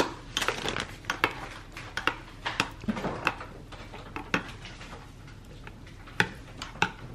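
Metal spoon stirring soup in a ceramic mug, clinking and scraping against the mug's sides in quick, irregular taps.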